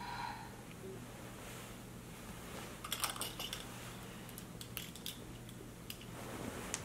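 A brief electronic tone at the start, then scattered light clicks and the rustle of a duvet being moved as someone stirs in bed, over a steady low hum.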